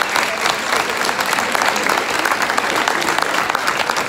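Audience applause: many people clapping steadily after a speech.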